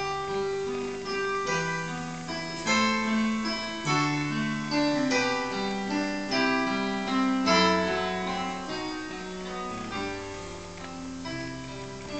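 Solo piano playing a calm classical piece: melody notes struck one after another and left to ring and fade over held bass notes.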